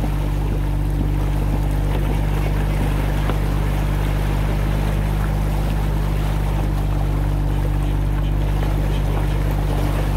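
Small fishing boat's motor running with a steady low drone, over the wash of the sea.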